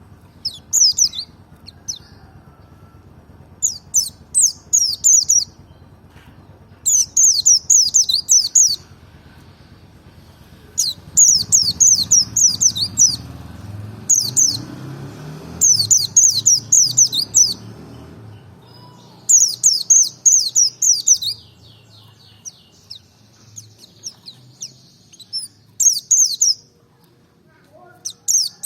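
Pleci merapi white-eye singing: repeated bursts of rapid, high, falling twittering notes, each a second or two long, coming every few seconds over a faint low rumble.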